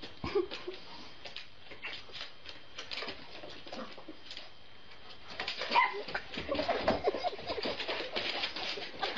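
A dog whining during rough play, over many short clicks and scuffles. The sounds grow louder and busier from about halfway.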